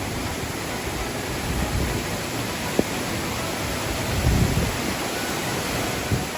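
Waterfall in heavy flood: a steady, even rush of falling water, with a few low rumbles about four seconds in, fading out near the end.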